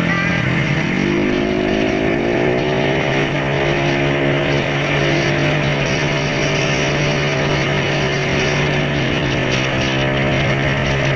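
Motorcycle engine running under way: its pitch drops at the start, climbs over the next couple of seconds as it accelerates, then holds steady, over a constant rushing hiss.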